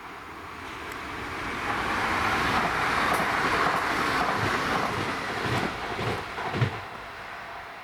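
Train passing through the station: rail noise builds, peaks about halfway, then fades, with a few low thumps from the wheels near the end.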